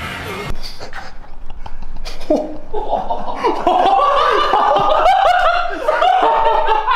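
Men laughing hard. The laughter starts about two seconds in and grows louder, with several voices overlapping.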